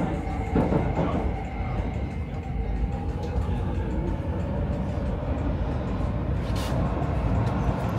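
Stockholm metro train running between stations, heard from inside the car: a steady rumble of wheels on track with a faint steady whine. Clicks sound in the first second, and one sharp click comes near the end.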